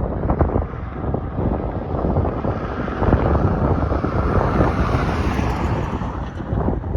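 Wind buffeting the microphone, a loud unpitched rumble and rush. A hissing swell rises through the middle and fades again near the end.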